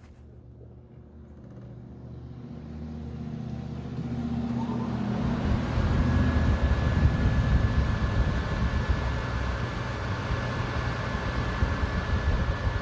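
LG LP1215GXR portable air conditioner starting up from its push button: the fan spins up, the rushing air noise growing over about five seconds, then running steadily. A thin high whine joins about six seconds in.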